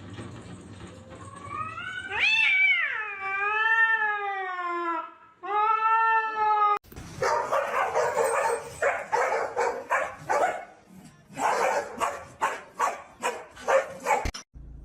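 Domestic cat yowling in two long, wavering calls that rise and then sag in pitch. After an abrupt change about seven seconds in, a long string of short, noisy bursts follows.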